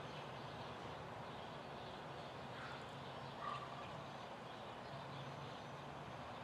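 Front-loader garbage truck's diesel engine running steadily with a low hum while its hydraulic arms lift a loaded dumpster over the cab. A brief high chirp or squeak stands out about three and a half seconds in.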